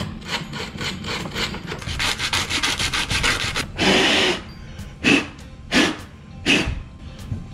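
Sandpaper rubbed by hand in quick back-and-forth strokes over the water-pump gasket surface of an outboard lower unit, cleaning off old gasket grime so the new seal seats well. The sanding stops about four seconds in, and the dust is blown off with one longer blow and then three short puffs.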